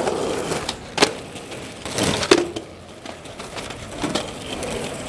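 Skateboard wheels rolling over rough concrete, with two sharp clacks of the board striking the ground, about a second in and again past two seconds.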